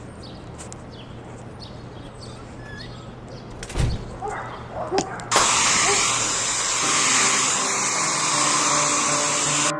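An air-type keyboard-cleaning tool starts abruptly about halfway through with a loud, steady rushing hiss, and cuts off suddenly just before the end. Before it there are a few faint clicks and a thump.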